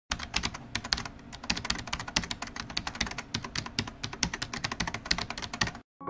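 Rapid, irregular clicking, about ten clicks a second, cutting off suddenly near the end.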